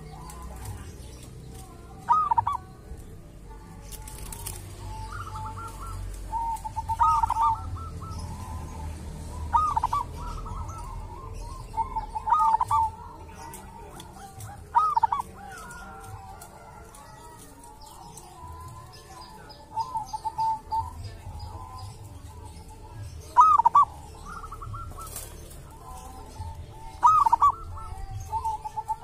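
Zebra dove (perkutut) cooing: short phrases of quick, rolling coo notes, repeated every few seconds and loudest near the end.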